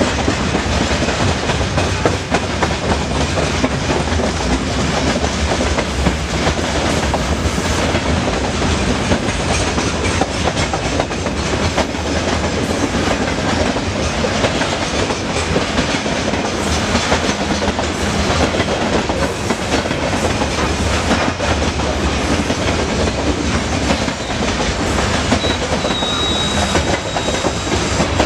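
Covered hopper wagons of a long freight train rolling steadily past close by, wheels clattering and rumbling continuously on the rails. A faint, brief high whine comes in near the end.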